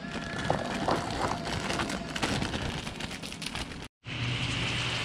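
A plastic bag crinkling with scattered small clicks as carrots are tipped from it into a pot of water. About four seconds in, after a brief gap, a steady hiss and hum from a liquid-fuel camp stove with food sizzling in a pan over it.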